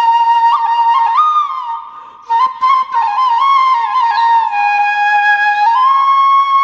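Background music: a flute playing a slow melody of long held notes with slides between them, briefly dropping away about two seconds in.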